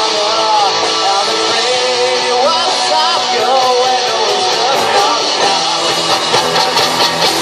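Live rock band playing: electric guitars, drums and keyboard, with a lead line bending up and down in pitch over them.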